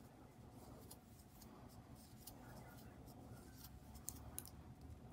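Faint small clicks and rustling of a metal crochet hook working yarn in single crochet stitches.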